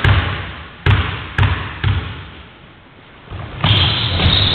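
A basketball is bounced four times on a sports-hall wooden floor within the first two seconds, with each bounce fading slowly in the hall's echo, as in a free-throw routine. From about three and a half seconds in, a louder, steadier din of the hall and players takes over.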